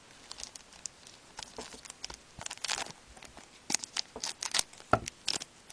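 Foil wrapper of a hockey card pack being handled and torn open: irregular short crackles and rustles, with one louder thump about five seconds in.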